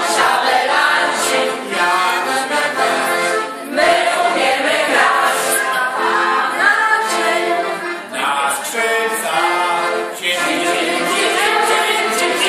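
A group of people singing a song together without accompaniment, many voices at once, in phrases with short breaks between them.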